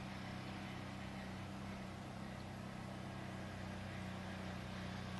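An engine running steadily at an unchanging pitch: a low drone with a hiss above it.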